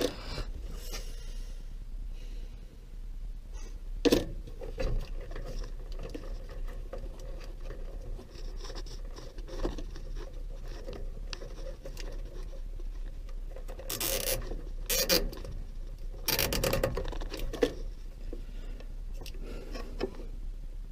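Handling noise of a washer's wiring harness and plastic connectors: wires rubbing and scraping, with a few sharp clicks and knocks about four seconds in and again twice near the end, over a steady low hum.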